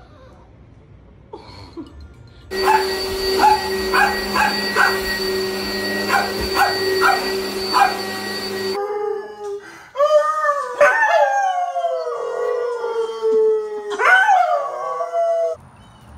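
An upright vacuum cleaner runs with a steady whine while a small dog barks at it in quick short yaps. Then a dog howls in long, wavering, gliding howls for about six seconds.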